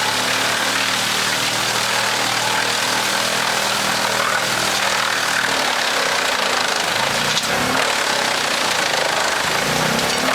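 Large wood chipper running: an engine hum under a loud, steady rushing noise. The engine hum fades about halfway through while the rushing noise goes on.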